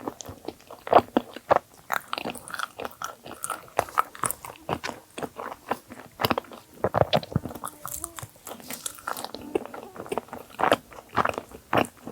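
Close-miked eating sounds: biting into and chewing a dessert bagel, with a steady run of irregular wet mouth clicks and crunches.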